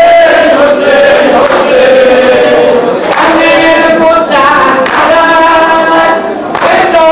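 A group of men chanting together in unison, loud, in phrases of one to two seconds with long held notes and short breaks between them.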